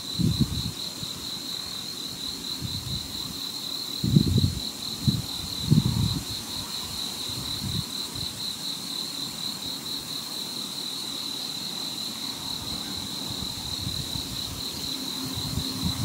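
An insect trilling steadily at a high pitch, a fast pulsing buzz that never stops. Low rumbles of wind on the microphone come and go, loudest about four and six seconds in.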